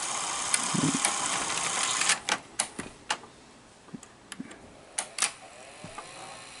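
A steady hiss stops about two seconds in. After it comes a run of sharp, irregular mechanical clicks and ticks, typewriter-like, from the open Sony SL-2300 Betamax VCR being handled.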